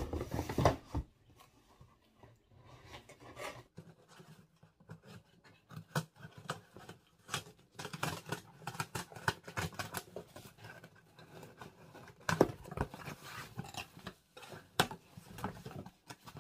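A cardboard shipping box being opened by hand: packing tape slit and torn along the seam and the flaps pulled apart, with scraping, rustling and several sharp knocks against the cardboard.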